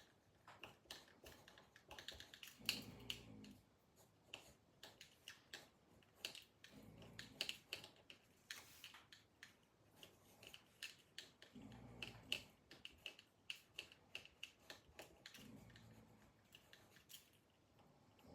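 A man snoring in his sleep: four faint, low snores about four seconds apart, with many small irregular clicks between them.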